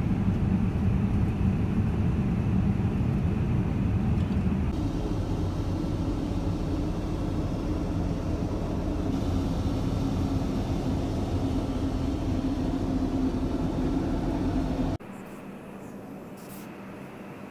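Steady rushing cabin noise inside a Boeing 787-9 airliner in flight. It changes abruptly a few times and drops much quieter about fifteen seconds in.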